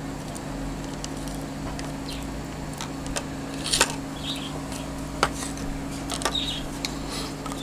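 A steady low electrical hum, with a few sharp clicks and light taps as a car alarm circuit board is handled and moved on a bench.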